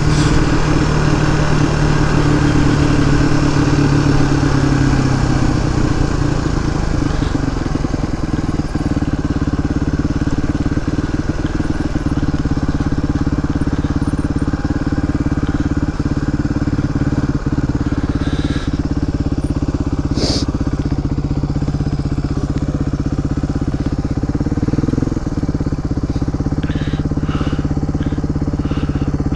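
Suzuki DR250S single-cylinder four-stroke engine running through a Dominator R aftermarket exhaust while the bike is ridden at a steady, easy pace. The engine note is heavier for the first few seconds, then holds steady. There is one brief click about two-thirds of the way through.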